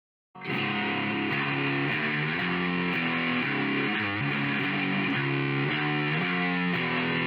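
Music with distorted electric guitar, starting suddenly out of silence a moment in.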